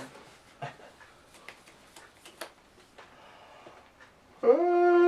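Playing cards being handled on a table mat, with faint scattered clicks and rustles. About four seconds in comes a loud, long wail held on one steady pitch for just over a second.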